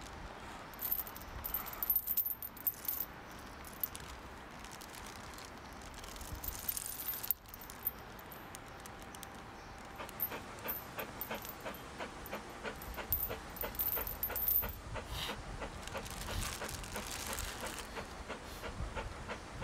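Metal chain links clinking and rattling as the chain is handled, a run of small quick clinks mostly in the second half.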